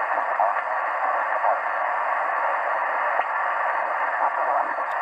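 Shortwave communications receiver (ICOM IC-R75) tuned to single-sideband on the 20-metre ham band, giving a steady hiss of band noise and static in its narrow voice passband, with no signal being received.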